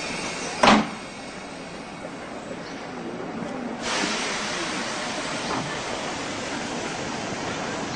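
Commuter train at a station: a sharp knock just under a second in, then from about four seconds a louder, steady hiss and rumble of the train.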